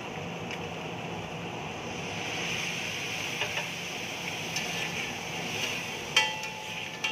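Egg mixture sizzling steadily on a flat steel griddle while a metal spatula works through it, with a few light scrapes and taps. About six seconds in, the spatula strikes the griddle with a ringing clang.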